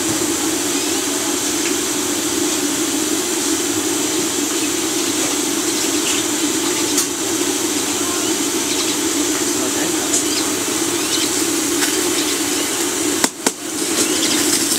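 Hot oil in a large wok sizzling steadily as a giant parotta deep-fries, with scattered small crackles. The sound briefly drops out about thirteen seconds in.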